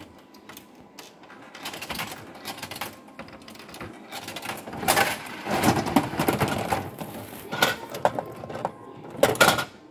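Coins going into a Bandai Gashapon capsule-toy vending machine, then its dial turned with a dense run of mechanical clicks, and a handful of louder knocks near the end as the plastic capsule is pulled out of the chute's flap.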